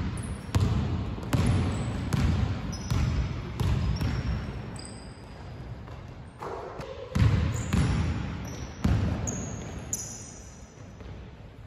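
A basketball being dribbled on a hardwood gym floor, with irregular bounces echoing through a large sports hall. Short high-pitched sneaker squeaks on the court come in between the bounces.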